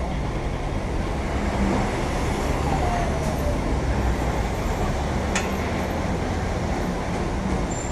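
Steady road traffic noise with a low rumble, heard from a bicycle riding along the roadside, with one sharp click about five seconds in.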